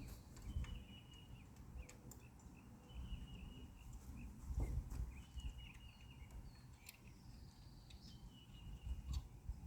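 Faint outdoor ambience with repeated high chirps from birds, over low rumbling noise and a few light clicks of handling.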